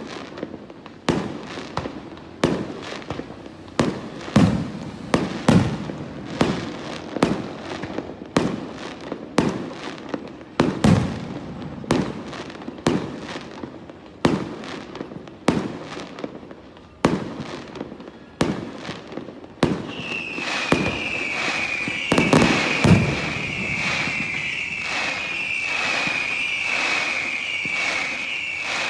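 Fireworks display: a steady run of sharp bangs, about one to two a second, some with a deep boom. About two-thirds of the way in, a high whistling tone joins, dipping in pitch again and again, while the bangs go on.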